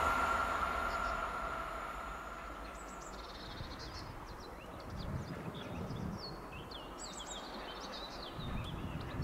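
A passing train's running noise and ringing wheel tone fading away over the first three seconds. Then small birds chirping in short, quick calls, with a low rumble rising twice underneath.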